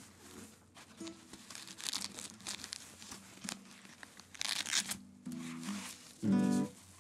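A guitar being handled in a padded gig bag: fabric rustling, with a loud rip partway through from the hook-and-loop neck strap. Near the end the strings are brushed twice and ring briefly, the second time loudest.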